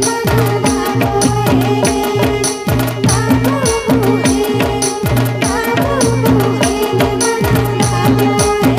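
Folk dance music with a fast, steady drum beat over a sustained low drone, and a winding melody on top.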